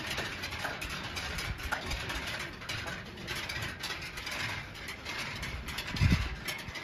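Motorcycle riding, with a fast, dense mechanical clicking rattle and one low thump about six seconds in.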